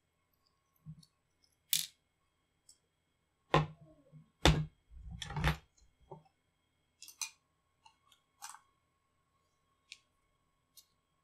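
Metal laptop hard-drive caddy and rail being handled: a scattered series of clicks and knocks as the metal parts tap together, loudest about three and a half and four and a half seconds in, with lighter ticks after.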